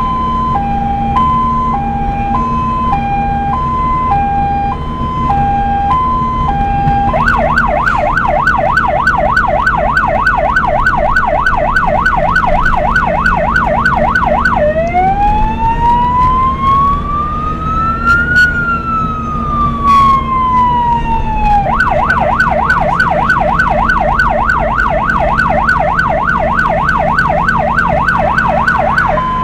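Electronic emergency-vehicle siren switching between its tones: a two-tone hi-lo, then about seven seconds in a fast yelp, then one slow wail rising and falling over about seven seconds, then the fast yelp again, with the hi-lo coming back at the very end. A steady vehicle engine hum runs underneath.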